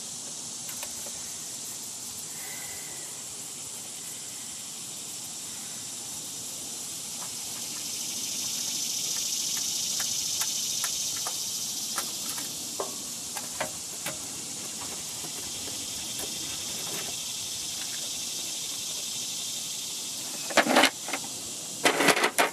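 A steady high hiss that swells for a few seconds in the middle. Scattered light clicks and two louder clatters near the end come from the spin-on oil filter being worked off by hand.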